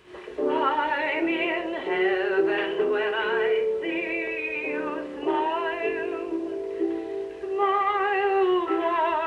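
A woman singing a slow, sentimental song with a strong vibrato, in phrases, with an upright piano accompanying her.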